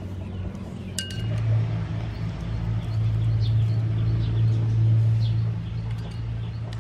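A steady low motor hum that swells from about a second in and eases off near the end, with a few faint bird chirps and a single click about a second in.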